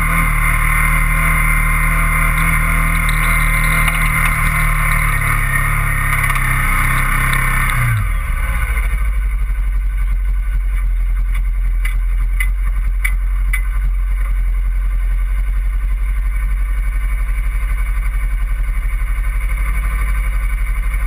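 Engine of the vehicle towing a sled, running under way with a steady hiss, then dropping in pitch about eight seconds in as it slows and settling to a steady low idle. A few sharp clicks come a few seconds after it drops to idle.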